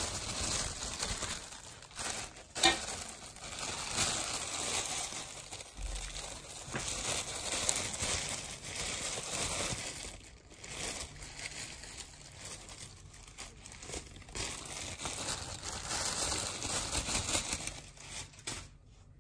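Plastic bag crinkling and rustling as soda ash powder is shaken out of it into a steel bowl, going on and off irregularly and dying down near the end.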